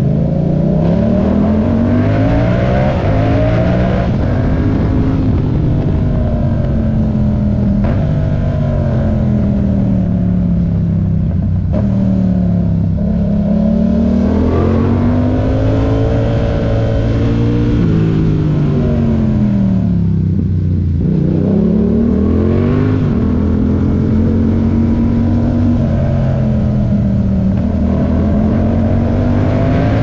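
Yamaha MT-07's 689 cc parallel-twin engine heard from the rider's seat, revving up and dropping back several times as the bike accelerates and eases off.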